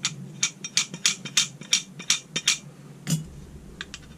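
Sharp metallic clicks from a Holley 4150 baseplate's throttle lever and shaft being worked open and shut by hand, about three a second, then a few fainter clicks near the end.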